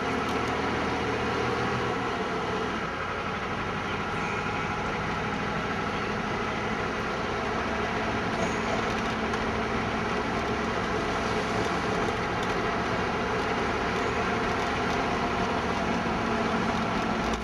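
A car driving at a steady speed, its engine and road noise heard from inside the cabin as a steady, unchanging hum.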